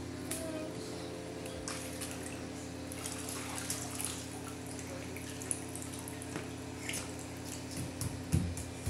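Pool water splashing and dripping as a small child in a swim float moves through it and climbs out, over a steady low hum. A few soft thumps near the end.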